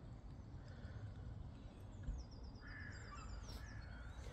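Birds calling over a steady low rumble. About two seconds in, after a brief thump, one bird gives a fast run of short, high, repeated notes while another gives a harsher, lower call.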